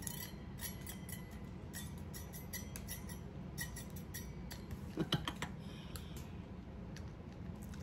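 Light, scattered clicks and ticks of a white plastic egg slicer with a wire-blade frame being handled and opened, with one brief louder sound about five seconds in.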